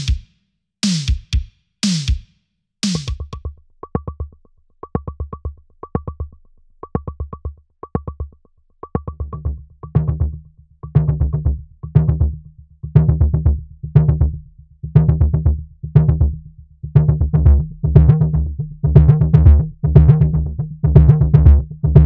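An 80s-style drum machine loop at 120 bpm played through three Dials test-equipment filter plugins in series (modelled on a passive band-pass filter and a converted broadcast level-transmitter preamp). After a few full drum hits it turns thin and heavily band-passed, with a ringing tone on each hit, then fills out with a strong low end and grows louder from about nine seconds on as the second plugin instance is faded in.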